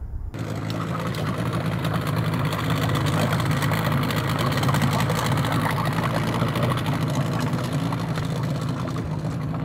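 A boat engine idling steadily with an even low hum. It begins abruptly a moment in.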